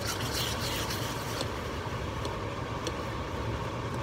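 Hot caramel hissing and sizzling violently as cream is poured into it in a stainless steel saucepan, the water in the cream flashing to steam; the crackling fizz is strongest in the first second or so, then settles into steady bubbling as it is stirred, over a constant low rushing noise.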